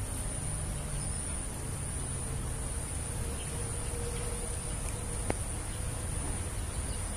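Steady high-pitched chirring of insects, with a low rumble underneath and one sharp click about five seconds in.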